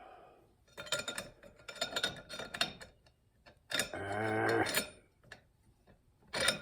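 Metal clutch plates of a 700R4 transmission's 3-4 clutch pack clicking and clinking as they are stacked into the clutch drum, with a short steady hum about four seconds in.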